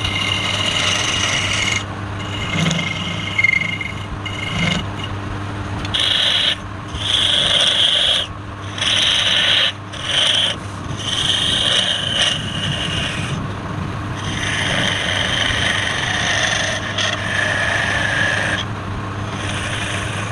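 Wood lathe running with a steady low hum while a tool or abrasive is pressed against the spinning wood, giving a raspy scraping that starts and stops in passes every second or two.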